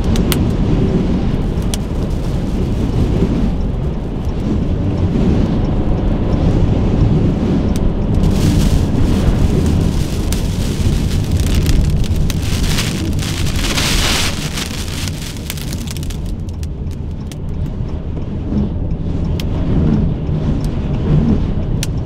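Thunderstorm wind and rain: a steady low rumble with rain hissing over it. The rain is heaviest from about eight to fifteen seconds in, then eases to scattered drops ticking.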